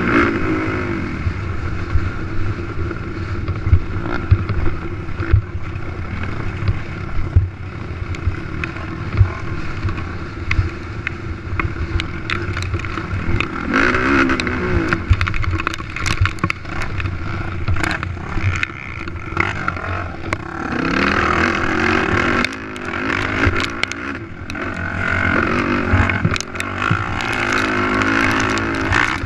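Racing ATV engine revving up and down through throttle changes, with repeated knocks and clatter from the quad bouncing over rough ground.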